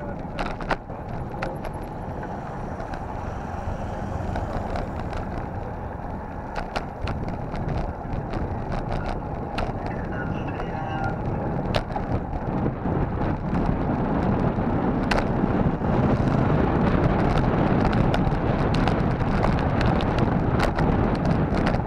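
Wind buffeting a bicycle-mounted camera's microphone over the hum of tyres rolling on a concrete road, with scattered sharp clicks and knocks from the bike going over bumps. The rushing grows louder about two thirds of the way through.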